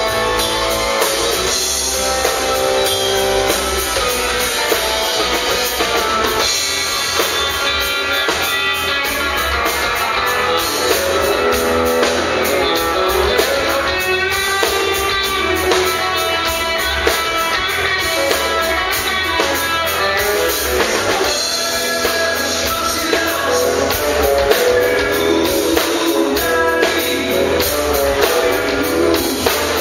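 Live band playing: electric guitar, electric bass and drum kit, with a steady beat.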